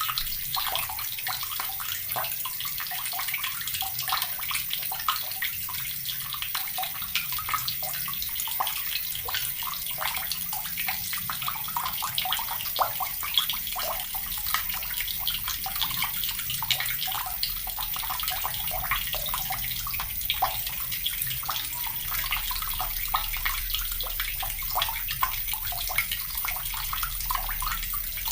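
Water tap running steadily, its stream splashing continuously into water below.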